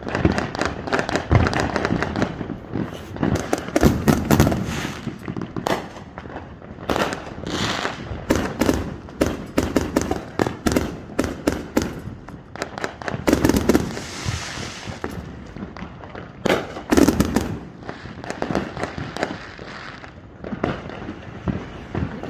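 Fireworks going off without a break: a dense run of sharp bangs and crackling pops, with heavier clusters of bursts several times.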